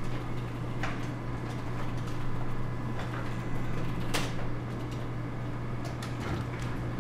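A steady low hum, with a few short sharp clicks over it; the loudest click comes about four seconds in.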